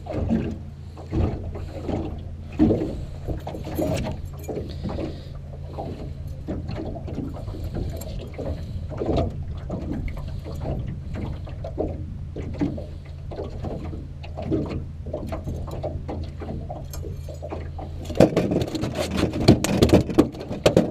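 Striped bass flopping in a landing net on a boat deck: irregular knocks and thumps that turn into a quick run of thrashing near the end, over a steady low hum.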